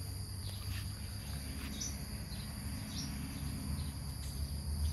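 Insects drone steadily at a high pitch in the orchard, with a few short bird chirps spaced about a second apart. A low rumble runs underneath.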